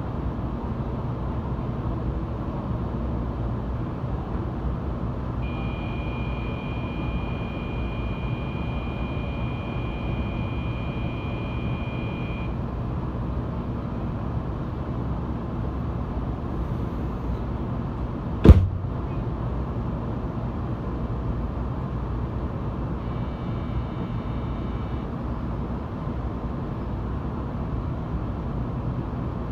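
Steady low hum inside a stationary Kyushu Shinkansen 800 series car. A steady high electronic tone sounds for about seven seconds, a single sharp knock comes about two-thirds of the way in, and that is the loudest sound. A short run of high beeps follows later.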